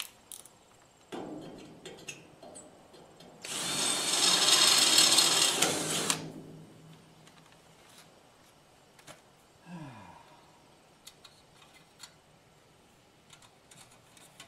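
Electric drill boring through the steel tongue of a lawn cart with a stepped-up, larger bit. A lighter run starts about a second in, then a loud run of about three seconds cuts through the metal and fades out. A short falling whine and a few small clicks follow later.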